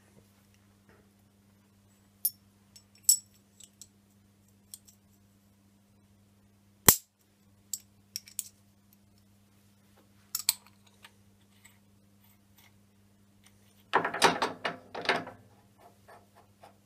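Metal tooling being handled by hand: scattered small clinks and clicks as an end mill, collet and tool holder are fitted together, with one sharp click about 7 s in. About 14 s in comes a second and a half of rapid metallic rattling as the holder is brought up to the mill spindle. A faint steady hum runs underneath.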